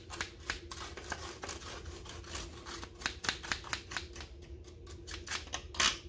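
An old toothbrush scrubbing inside a wooden bird cage between the wire bars, making a quick, irregular run of scratchy clicks as the bristles rake across the wires and floor. One louder scrape comes near the end.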